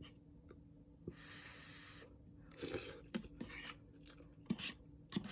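Quiet eating sounds: a fork clicking and scraping against a nearly empty container of instant ramen as the last noodles are chased, with chewing between a few sharp little clicks.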